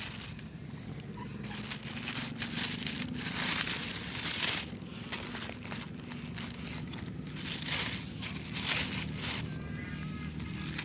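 Thin plastic bag crinkling and rustling in irregular bursts as fallen mangoes are picked up and dropped into it.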